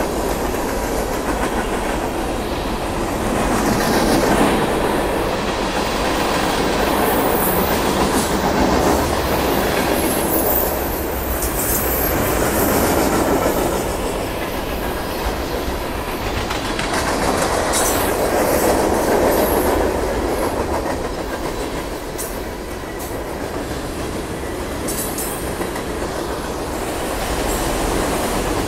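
Cars of a long Union Pacific freight train, largely autoracks, rolling steadily past with wheels clacking over the rail joints. The sound swells and eases every few seconds, with brief high wheel squeals now and then.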